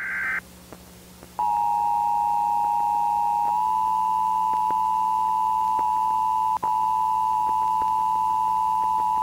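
Emergency Alert System broadcast: the tail of a buzzy SAME digital header burst, a short pause, then the two-tone EAS attention signal (853 and 960 Hz together) held steady, cutting out for an instant about two-thirds of the way through.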